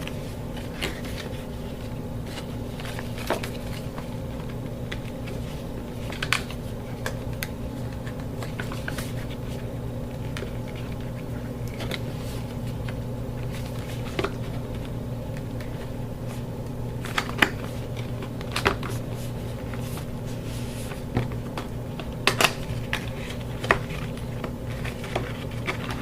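Occasional clicks, taps and light rustles of a watch box and its packaging being handled, over a steady low hum.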